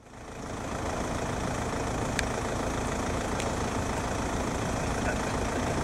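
Steady outdoor background noise with a heavy low rumble, fading in over the first second, with faint clicks about two and three and a half seconds in.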